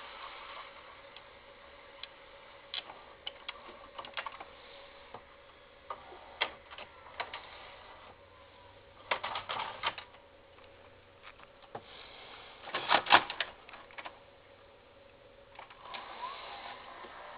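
Irregular clicks and knocks of the camera being handled against wooden furniture, loudest in two clusters about nine and thirteen seconds in, over a faint steady hum.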